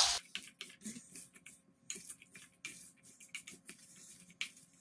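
Wooden spoon stirring diced bell peppers and onions in a large stainless steel bowl, mixing salt through them: quiet, irregular scrapes and clicks.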